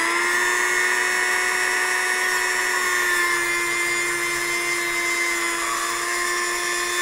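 Dremel rotary tool with a cut-off wheel running at a steady high whine while it cuts down an exhaust manifold stud.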